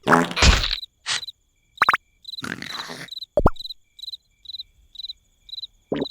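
Cartoon night ambience: a cricket chirping steadily, about three chirps a second. Over it come short comic sound effects, with a loud burst at the start and a sharp thump about three and a half seconds in.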